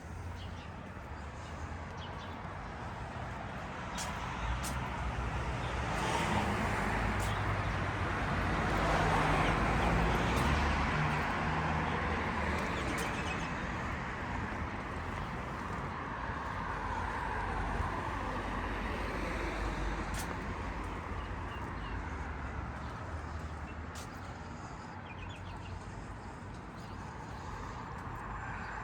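Street traffic: passing vehicles over a steady low road rumble, one building to its loudest about ten seconds in and fading away, then another smaller swell a little later.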